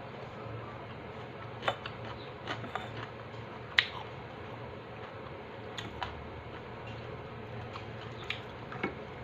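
Scattered short crunches and clicks of someone eating crispy chicharon, about eight sharp ones spread irregularly over a low steady hum.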